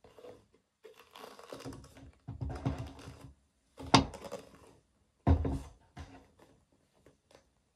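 Pair of leather double monk strap dress shoes handled and set down on a tabletop: a few seconds of rustling and leather handling, a sharp knock about four seconds in, and a heavier low thud a little after five seconds as the shoes are put down, followed by a few light taps.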